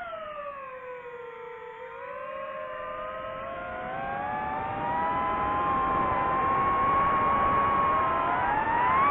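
DJI FPV drone's motors and propellers whining: the pitch falls as the throttle drops at the start of the dive, then climbs steadily as the drone speeds downward, with a rush of air growing louder over the second half.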